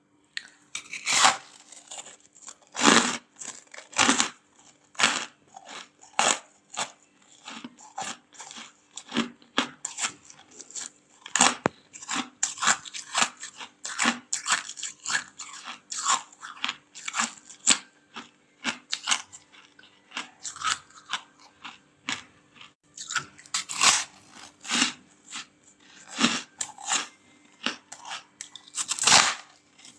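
Freezer frost being bitten and chewed close to the microphone: dense, irregular crunches throughout, several sharply louder bites among them, over a faint steady hum.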